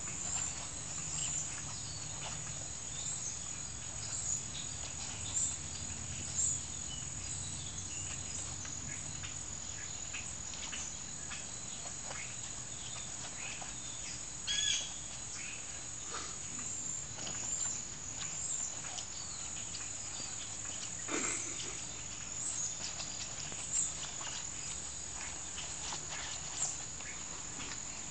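Chihuahuas play-fighting, heard as scattered short scuffles and small sharp sounds, with a brief squeak about fifteen seconds in and a louder sudden sound just after twenty. Behind them is a steady high chirring of insects.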